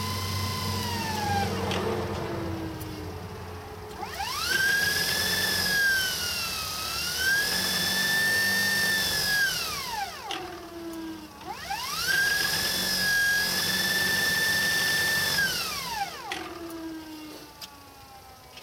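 SepEx DC motor on a Kaylor adaptor, driven by a Kelly motor controller, revved up twice. Each time its whine climbs to a high, steady pitch for about five seconds, then falls away quickly as the motor slows, ending in a brief lower falling hum. At the start an earlier run is already winding down.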